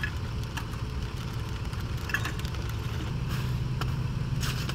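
SUV engine idling with a steady low rumble, with a few light clinks and rustles of cookware and gear being handled at the open tailgate.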